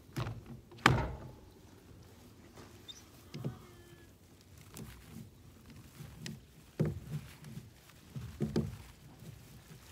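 Scattered knocks and clunks of hands working a stiff plastic valve on a water tank. The sharpest knock comes about a second in, with a few more near the end.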